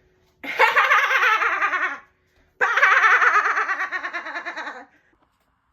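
A high cackling laugh, heard twice, each a long quick-pulsing cackle that slides down in pitch.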